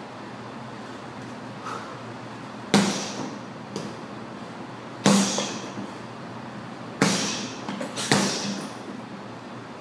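Boxing gloves punching a hanging heavy bag: four hard thuds and two lighter hits, irregularly spaced about one to two seconds apart.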